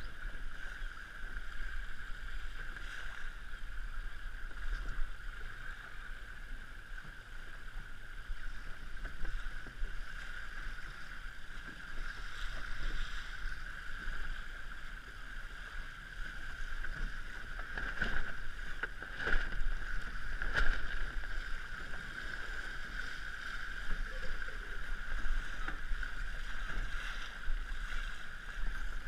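Water rushing past an RS100 sailing dinghy's hull as it sails through chop, with wind buffeting the microphone. A few sharper slaps of waves on the hull come about two-thirds of the way through.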